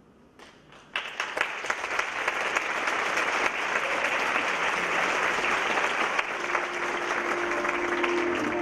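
After a brief hush, an audience bursts into applause about a second in and keeps clapping steadily. A sustained low note of music enters underneath near the end.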